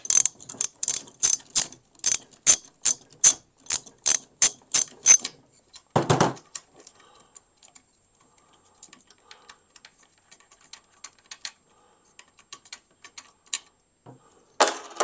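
Socket ratchet clicking rapidly and evenly, about four or five clicks a second, as a terminal nut is backed off; the clicking stops about five seconds in. A single knock follows about a second later, then only faint handling ticks.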